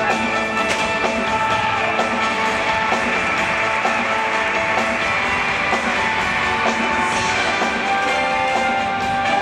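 Loud rock-style show music with guitar and a steady beat.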